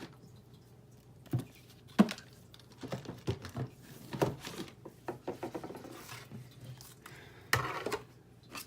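Small taps, clicks and rustles of paper pieces and plastic stamp-set cases being handled on a craft table, with a sharp knock about two seconds in and a longer rustling scrape near the end.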